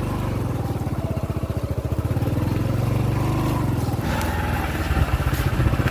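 Motorcycle engine running steadily, with a quick, even pulse of firing strokes. About four seconds in it gets louder, with more hiss on top.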